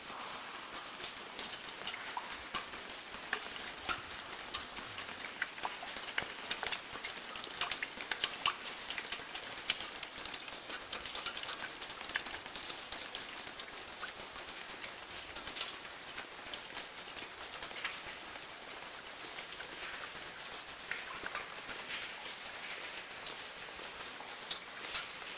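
Steady patter of rain and water drops falling in a slot canyon: a constant hiss with many small, irregular drip ticks.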